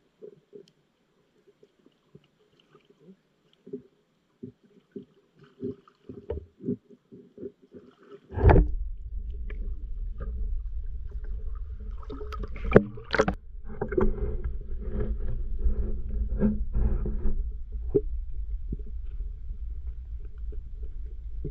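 Muffled underwater sound picked up by a submerged camera: faint scattered knocks at first, then about eight seconds in a sudden loud bump followed by a steady low rumble of water moving against the camera housing, with repeated knocks as it is handled.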